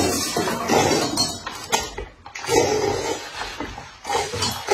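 Loud slurping of instant rice noodles sucked straight from a paper cup, in several long noisy draws with short breaks between them.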